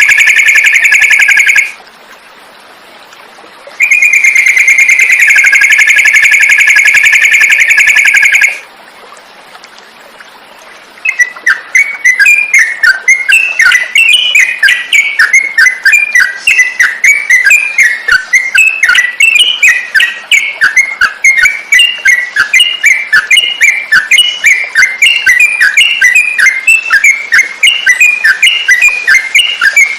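Recorded songbird song used as masteran training audio, billed as a trucukan (yellow-vented bulbul): two long, steady, trilled whistles with short pauses between, then about a third of the way in a rapid, continuous run of chirping notes.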